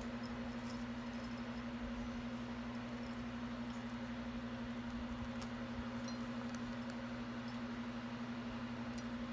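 A steady low hum, with a few faint light clicks of jewelry being handled.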